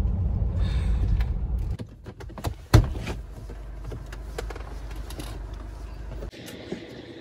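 Low rumble of a vehicle heard from inside, loud at first and quieter after about two seconds, with one sharp knock about three seconds in; the rumble stops abruptly near the end.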